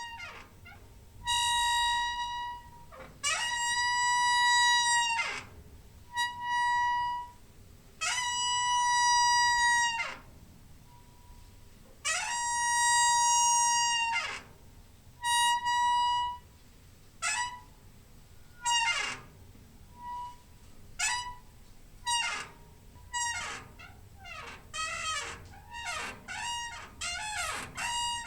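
Door hinge squeaking: high, drawn-out creaks, each lasting one to two seconds, that bend in pitch as they end. They give way to shorter, quicker squeaks that come closer together near the end.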